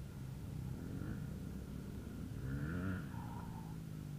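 Dirt bike engine idling steadily, left running near the downed rider, with a brief faint voice about two and a half seconds in.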